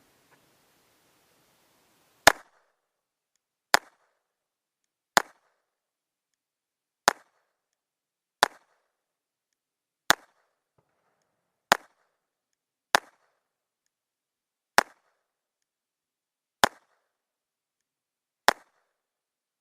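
Smith & Wesson M&P22 .22 LR semi-auto pistol fired in slow, steady single shots, eleven in all, one every one and a half to two seconds, starting about two seconds in.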